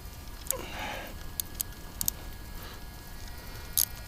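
A few sharp light clicks and a brief rustle: hands handling parts of an RC car.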